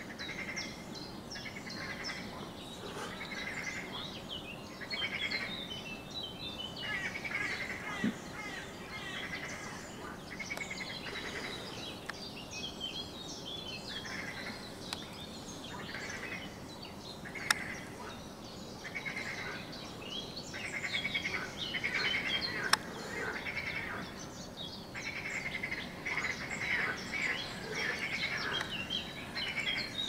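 Birds singing with quick chirps over a chorus of frogs croaking in repeated bursts of about a second each, with two sharp clicks in the second half.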